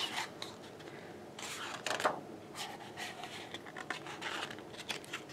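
Glossy pages of a large photo book being turned by hand: a few soft paper rustles and slides.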